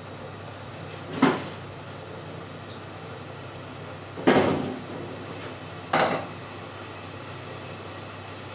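Three hard knocks in a kitchen, each with a brief ring after it, about three seconds apart and then under two, over a steady low hum.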